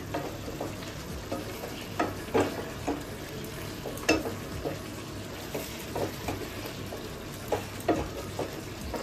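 Spatula stirring vegetables in a simmering curry in a non-stick kadai: scattered scrapes and knocks against the pan over a steady sizzle.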